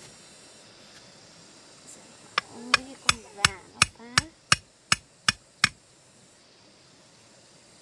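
About ten sharp chopping strikes in quick succession, roughly three a second, with a brief voice-like sound among the first few.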